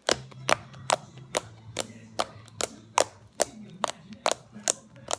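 Slime being squeezed and kneaded by hand, giving sharp popping clicks at an even pace of about two a second, over a steady low hum.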